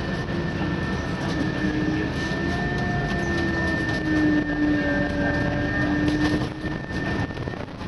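Scania CityWide LF CNG city bus under way, heard inside the cabin: steady engine and drivetrain hum with rumbling road noise. A whine rises slowly in pitch as the bus gathers speed, and a steady high whistle runs above it.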